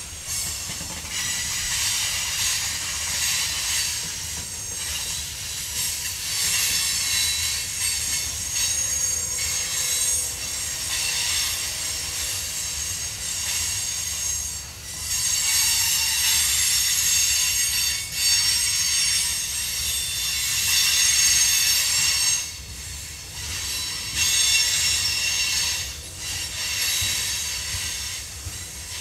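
Freight train boxcars rolling past, their steel wheels squealing in several high, steady tones that swell and fade over a low rumble of wheels on rail. The squeal dips briefly a few times.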